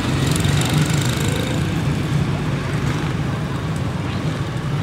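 Several quarter midget race cars' small engines running together in a steady, buzzing drone as the cars circle the track.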